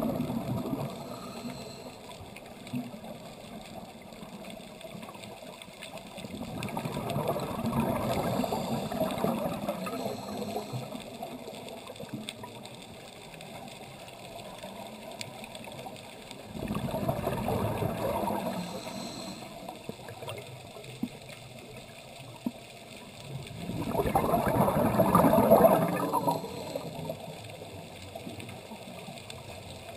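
Scuba diver's exhaled breath bubbling out of a regulator underwater: three long bubbling rushes several seconds apart, with quieter water sound between them.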